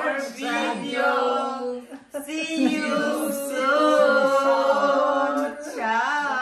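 Voices singing unaccompanied in long held notes, with a short break about two seconds in.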